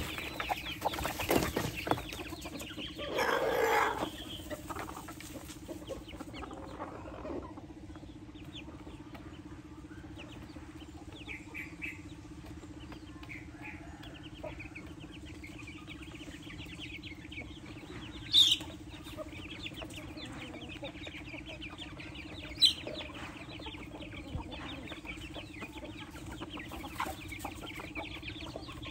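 Free-ranging chickens feeding: hens clucking and chicks peeping in short high chirps, with a louder hen call about three seconds in and two sharp clicks past the middle.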